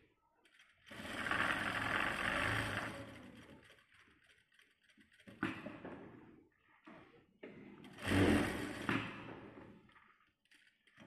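Sewing machine stitching the seam of a cloth face mask in short runs: a longer run about a second in lasting some two and a half seconds, a brief one midway, and another near eight seconds in.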